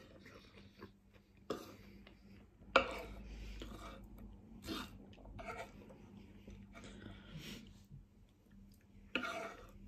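Eating sounds: a metal fork scraping and tapping on a wooden board as food is picked up, with chewing in between. A sharp tap about three seconds in is the loudest.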